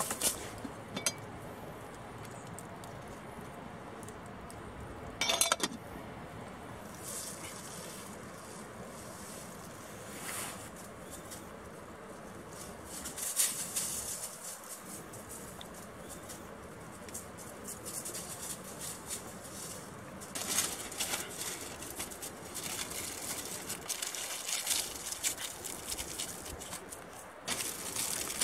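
Dry fallen leaves rustling and crunching in separate bursts under footsteps and handling. Near the end, aluminium foil crinkles as a foil-wrapped baked potato is opened.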